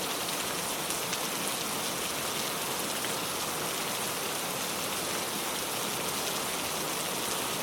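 Steady rain falling, an even hiss with faint drop ticks here and there.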